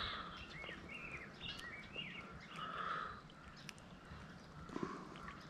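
Small songbirds chirping, with a run of short rising and falling notes in the first three seconds, over a faint steady low rush.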